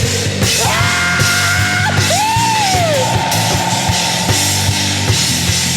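Rock band music with drum kit and guitar playing. A held high note sits over it, arching up and back down about two seconds in, then holding steady.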